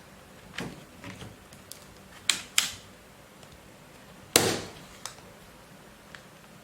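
Hard plastic clicks and knocks as an HP ProBook 450 G2 laptop's removable battery is put back and latched in. There are two close clicks a little past two seconds in, a louder knock about four seconds in, and a few lighter clicks around them.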